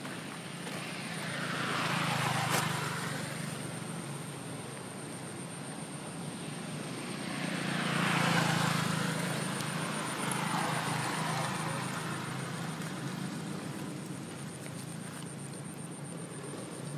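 Engine noise passing by twice: one swell about two seconds in and a longer, louder one around eight seconds in, each rising and fading away, over a steady low hum.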